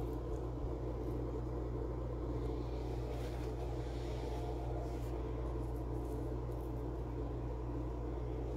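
A steady low hum of background machinery, holding an even level throughout with faint scattered clicks.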